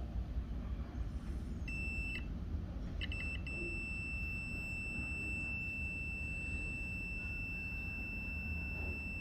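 Digital multimeter's continuity buzzer sounding as the probe touches the circuit board: a single high steady beep that comes in about two seconds in, breaks off, gives a few short blips around three seconds, then holds steadily. A held beep signals a low-resistance path, such as a short, between the probes.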